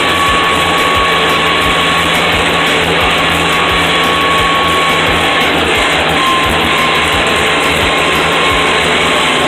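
Tractor engine running steadily under load, heard from inside the cab while pulling a disc harrow, with a thin steady whine over the drone.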